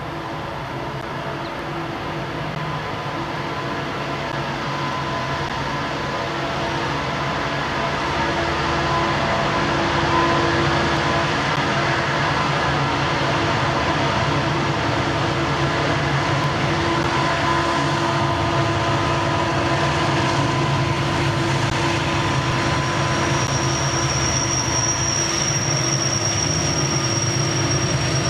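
Conrail diesel locomotives working through a tunnel and coming out of it, their engines' steady drone growing louder over the first ten seconds and then holding. A thin, steady high-pitched whine joins about 22 seconds in.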